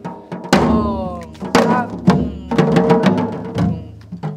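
Janggu, the Korean hourglass drum, struck with stick and hand in a few strokes roughly a second apart, demonstrating the jungjungmori rhythm pattern.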